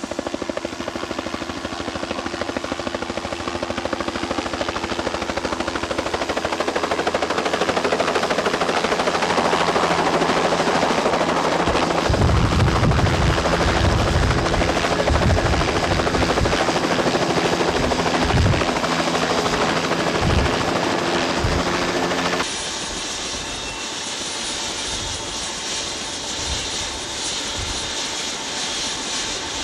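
A helicopter's turbine whine and rotor noise at close range, building over the first dozen seconds, with irregular low thumps through the middle. About two-thirds of the way through it drops abruptly to a quieter, steady turbine whine.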